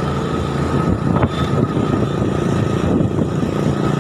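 Motorcycle engine running and road noise while riding, heard from the rider's seat as a steady low drone.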